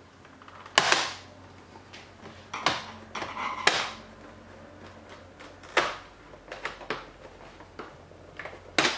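Plastic side strip of an HP TouchSmart 600 all-in-one PC being pried up with a screwdriver: about six sharp plastic clicks and snaps at uneven intervals as its clips let go, with light scraping in between.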